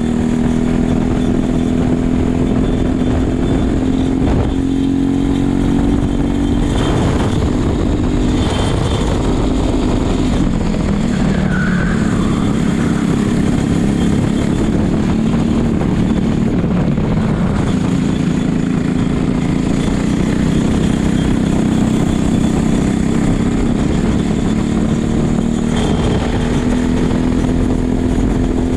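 Racing kart's single-cylinder engine running at race pace, heard from the driver's helmet camera. Its pitch drops in the middle, as it slows for corners, then climbs back up.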